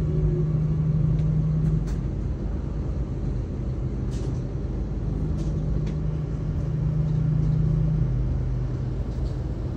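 Passenger train rolling slowly into a station, heard from inside the carriage: a steady low rumble with a low hum that fades out and returns, and a few faint short high clicks.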